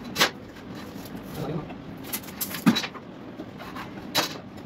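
A wooden panel being shifted and set down on a table saw's steel top: about five short, sharp wooden knocks, the loudest just past halfway. The saw is not running.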